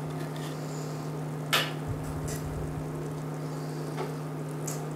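Onions and rice sizzling quietly in a pot over the steady hum of an induction cooktop. A kitchen knife knocks once sharply on a wooden cutting board about one and a half seconds in, with a couple of lighter taps later.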